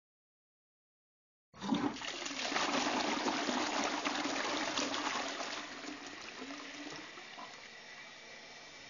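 Toilet flushing: after a second and a half of silence, a sudden rush of water swirls down the bowl, loudest for a few seconds, then eases into a quieter trickle as the tank refills.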